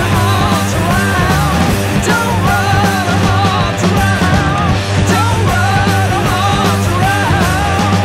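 Rock band music at a steady, loud level, with a sustained low bass and a wavering lead melody line that comes back in short phrases of about a second.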